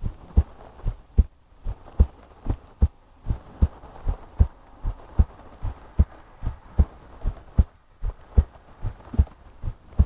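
A woman's heartbeat recorded up close, beating steadily and regularly in soft, low lub-dub double thumps, with a faint hiss between the beats.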